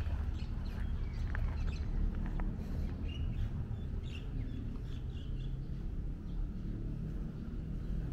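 Birds chirping in short, scattered calls over a steady low rumble, with a few light clicks early on.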